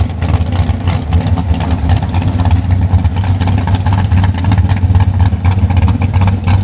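Large-displacement drag-racing engine idling loud and steady with a rapid, choppy pulse, not being revved.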